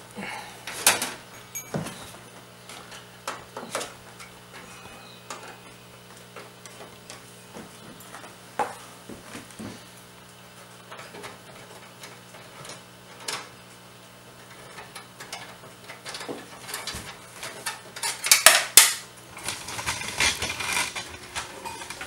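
Light metal clicks and clinks as the metal expansion-slot covers on the back of a PC case are worked loose and pulled off. Near the end there is a louder clatter of metal, and a faint steady hum runs underneath.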